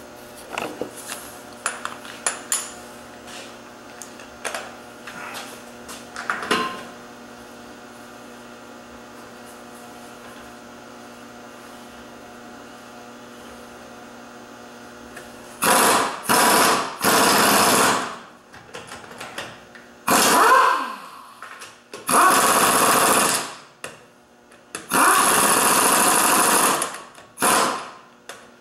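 Power impact wrench run in repeated short bursts, about eight loud rattling bursts in the second half, one winding down with falling pitch. Before that come scattered light metallic clinks of hand tools over a steady low hum.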